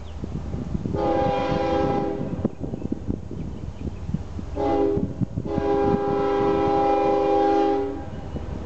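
Diesel locomotive air horn sounding a chord of several tones: a long blast about a second in, then a short blast and a long blast near the end, in the pattern of a grade-crossing warning. Under it is the low rumble of the approaching train.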